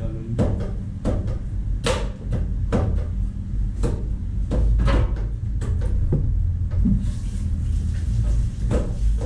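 Restaurant kitchen clatter: irregular knocks and clanks of cookware and utensils, a sharper one about two seconds in, over a steady low rumble from the cooking line.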